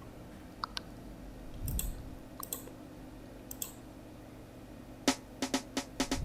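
A few scattered computer mouse clicks, then about five seconds in a snare roll pattern starts playing back from FL Studio: a quick run of sharp snare hits, several a second.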